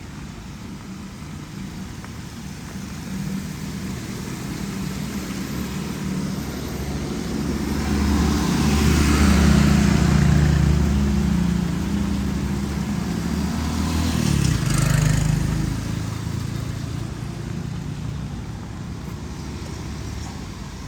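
A motor vehicle's engine drawing near and passing, with tyre hiss loudest about nine to ten seconds in. A second swell comes near fifteen seconds, then the engine fades away.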